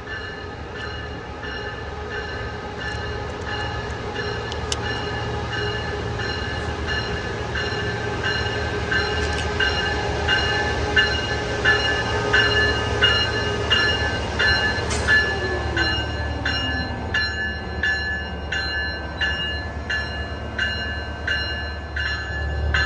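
A train rolling past: a steady low rumble with high ringing tones over it, and a rhythm of wheel clicks over the rail joints that comes quicker toward the end.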